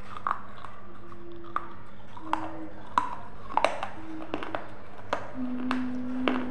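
Close-miked crisp crunches and chewing clicks from biting and chewing a hard, round, brown baked disc, about ten sharp cracks at irregular intervals.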